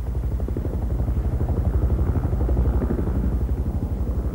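Bell UH-1 Huey helicopters' two-bladed main rotors thudding in a fast, even beat, about ten beats a second, as the helicopters lift off and fly low overhead.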